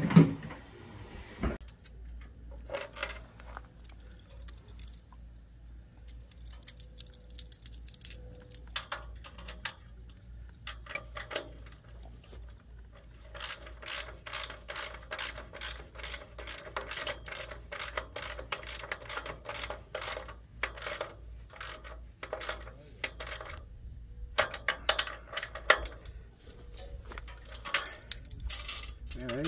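Socket ratchet wrench clicking in quick runs as a nut is tightened on a bolt through a steel tower leg's base bracket.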